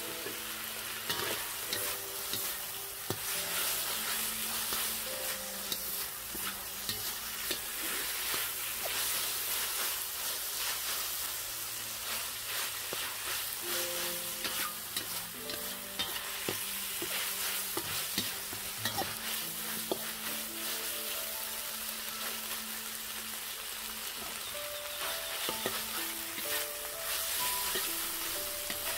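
Stir-frying in a wok: sliced meat, onion and chili sizzling steadily in hot oil, with a metal spatula scraping and clacking against the wok many times.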